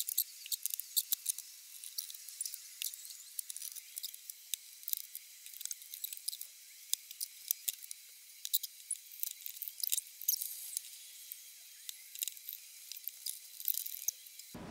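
Scattered light clicks and rustles of hand work at a bench: paper handling, a glue bottle and bar clamps being set. They sound thin and tinny, with no low end.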